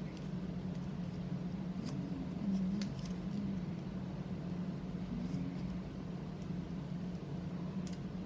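A sheet of origami paper being folded and creased by hand: light rustling with a few sharp crinkle ticks, over a steady low hum.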